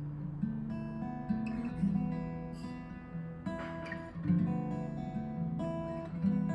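Acoustic guitar strumming chords, each strum ringing on into the next, about one a second.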